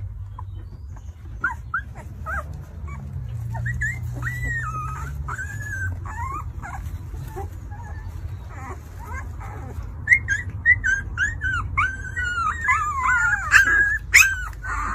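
Two-week-old Alaskan malamute puppies whimpering and squealing: thin high cries that bend up and down, scattered at first and coming thick and overlapping from about ten seconds in. A steady low rumble runs underneath.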